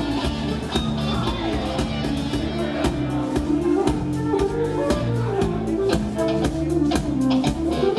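Live contra dance band playing a dance tune, with melody notes over a bass line and a steady beat.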